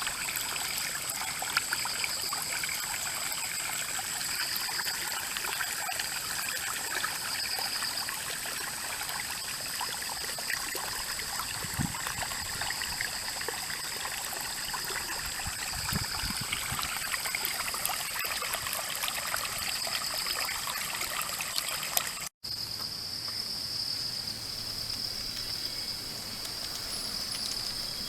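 Rain-fed stream flowing and trickling steadily, with insects shrilling in a steady high drone behind it. About 22 seconds in it cuts off suddenly and resumes with the water fainter and the insect drone louder.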